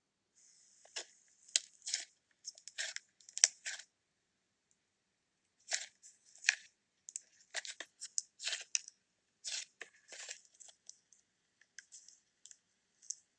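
Butter slime being pressed, poked and pulled apart by fingers, giving short, irregular, sticky crackling and tearing sounds, with a pause of about two seconds partway through.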